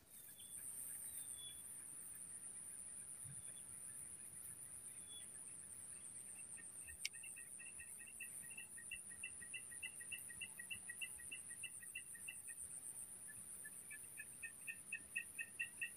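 A steady, high-pitched insect drone, with a rapid run of short, two-pitched pulsed animal calls at about three a second starting about six seconds in; the calls pause briefly and come back louder near the end. A single click sounds about seven seconds in.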